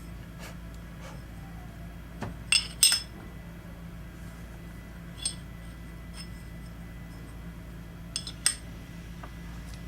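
Small metal turbocharger parts clinking against each other and a hard surface, sharp ringing clinks over a steady low hum. There are two loud clinks about two and a half seconds in, one more about five seconds in, and a short cluster near the end.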